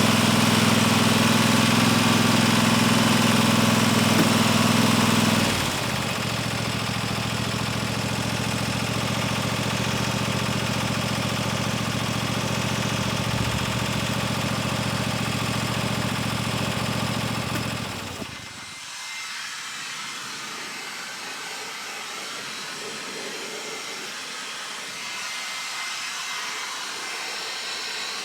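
An engine running steadily. It drops in level about five and a half seconds in and shuts off at about eighteen seconds, leaving a steady hiss.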